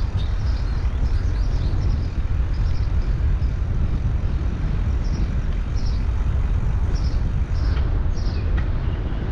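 Wind buffeting the microphone of a helmet-mounted action camera on a moving bicycle, a steady low rumble. Birds chirp in short high calls over it, several times.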